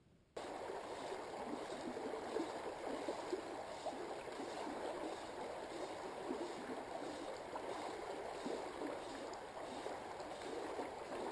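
Water of a small stream running and gurgling steadily; it starts abruptly just after the beginning.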